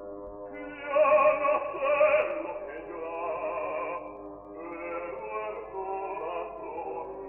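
Operatic music: a voice singing with orchestra, swelling loudest about a second in and then easing off.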